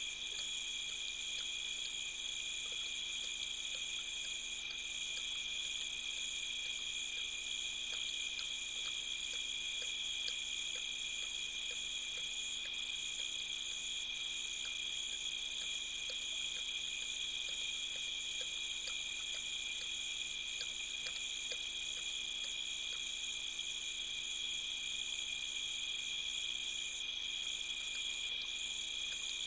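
Steady night chorus of insects, an unbroken high-pitched shrilling that holds the same pitch throughout.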